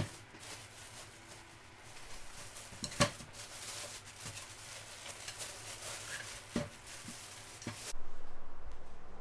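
Foam packing and wrapping of a boxed PC case being handled and pulled away: a rustling noise with a few knocks, the loudest about three seconds in.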